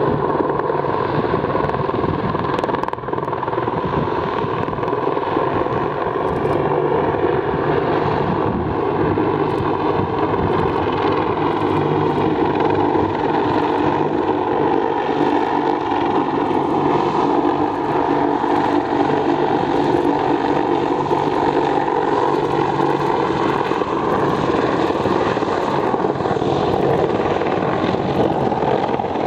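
AH-64 Apache attack helicopter in flight: continuous rotor and twin turboshaft engine noise, its pitch drifting gently lower and back up as the helicopter moves.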